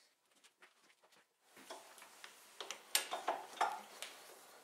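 Sharp clicks and metallic knocks of a lathe's four-jaw chuck being worked by hand as the turned part is released and lifted out, loudest about three seconds in, after a second or so of faint scattered ticks.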